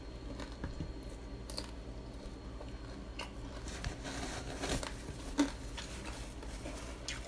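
A person chewing a mouthful of crispy fried chicken: soft mouth sounds with scattered small crunches and clicks, the sharpest about five and a half seconds in.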